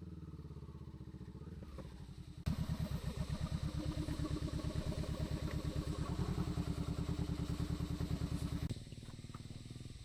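Sportsbike engine running at low revs with a steady pulsing beat. It gets louder about two and a half seconds in, then drops back shortly before the end.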